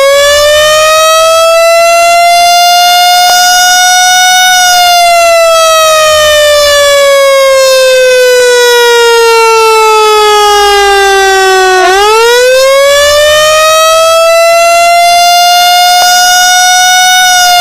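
A siren wailing in long cycles: its pitch climbs quickly for a few seconds, holds briefly, then sinks slowly over about seven seconds before climbing again about twelve seconds in.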